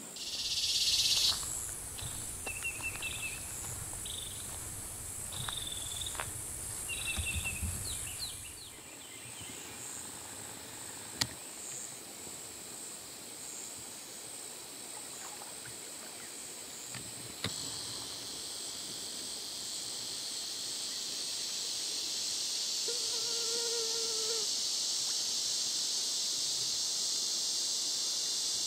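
Insects buzzing in a steady high chorus in Florida woods, which swells louder and fuller about two-thirds of the way through. A few short chirps come early on, and two sharp clicks stand out.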